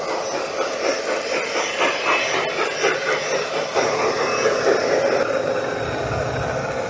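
Garden-scale model freight train running, heard from on board: a steady rumble with wheels clicking over the track. About five seconds in the sound turns duller as the train runs into a tunnel.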